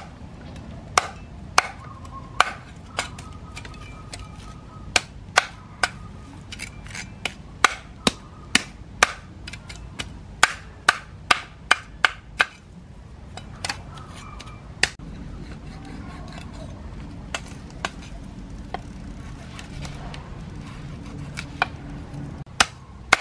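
Cleaver scraping the scales off a large fish on a wooden chopping board: sharp, irregular clicks and taps, about one or two a second, as the blade strokes along the fish and knocks on the board, fewer of them for a few seconds past the middle.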